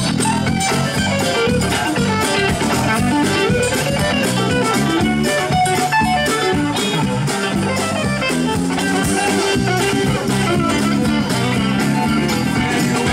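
Telecaster-style electric guitar soloing, a quick run of picked single notes, with the live band playing behind it.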